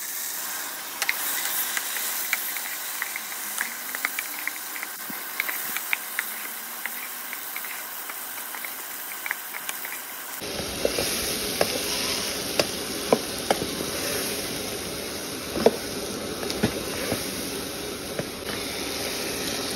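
Okra frying in oil in a pan: a steady sizzle with scattered crackles and pops. About halfway through the sizzle turns fuller, with sharper pops.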